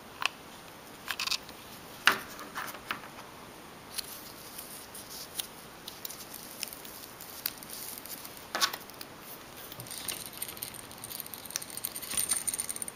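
Scattered light clicks and taps of hands handling a small ribbon bow and a modelled clay figurine on a table, at irregular intervals, with a busier run of small clicks and rustles near the end.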